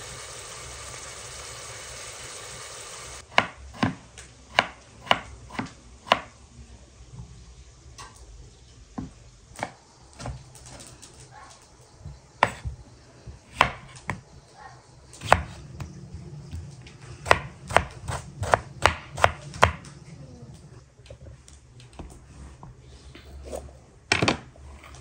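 Oil sizzling under chopped tomatoes and onions in a frying pan for about the first three seconds, cutting off abruptly. Then a knife chops vegetables on a wooden cutting board in sharp, irregular knocks, the last loud strikes as a red bell pepper is cut.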